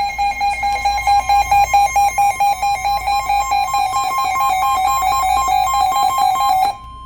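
Emergency Alert System two-tone attention signal received off a radio broadcast. The tone is loud and distorted with a rapid pulsing flutter. About 6.7 seconds in, the lower tone cuts off and a fainter single tone carries on.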